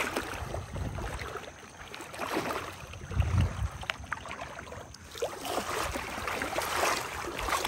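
Shallow water sloshing and splashing around a wading angler as a hooked black drum is brought to a landing net, with a low thump about three seconds in.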